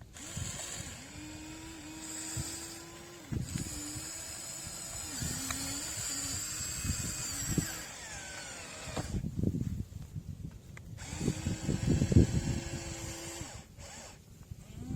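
Radio-controlled excavator's electric motor whining in stretches, its pitch stepping up and down as the controls are worked, with scraping and crunching of soil under the bucket. The crunching is loudest about nine to thirteen seconds in.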